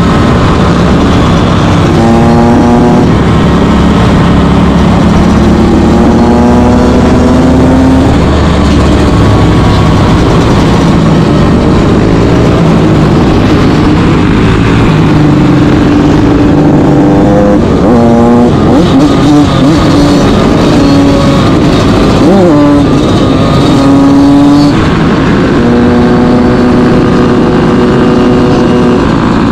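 Dirt bike and quad engines running hard at speed. The nearest engine holds steady pitches for a few seconds at a time and climbs, with quick revs up and down near the middle and later on.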